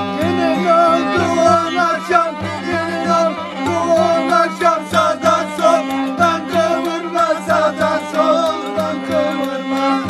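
Black Sea folk dance tune (oyun havası): a man singing a heavily ornamented melody over a violin and a large rope-tensioned davul drum beating a steady rhythm.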